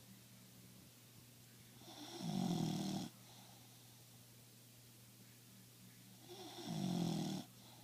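Snoring: two slow snores about four and a half seconds apart, each swelling for about a second and then cutting off sharply, with a steady low hum underneath.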